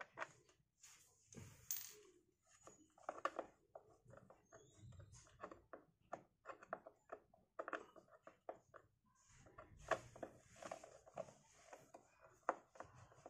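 Screwdriver working out the screws of a Yamaha Nmax's plastic air filter box cover: faint, irregular clicks and scrapes of metal on screw heads and plastic.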